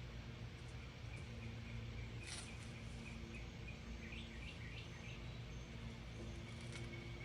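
Faint outdoor background with a steady low hum, and a short run of quick bird chirps about four seconds in.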